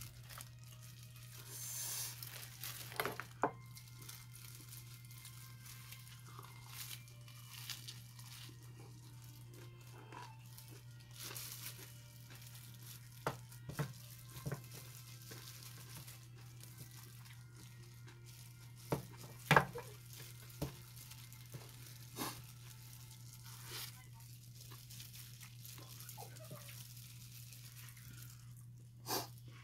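Clear plastic food-handling gloves crinkling and rustling as hands tear apart pieces of meat, with scattered sharp clicks, one louder a little past the middle. A steady low hum runs underneath.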